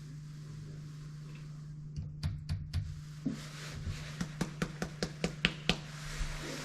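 Rapid light taps and clicks, about four or five a second from about two seconds in until near the end, made while handling the powder and a muzzle-loading wheel lock pistol during loading.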